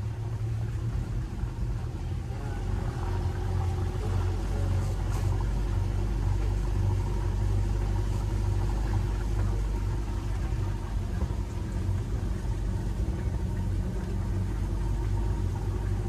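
Land Rover 4x4's engine running steadily, with a deep rumble, heard from inside the vehicle on an off-road track; it grows a little louder about three seconds in.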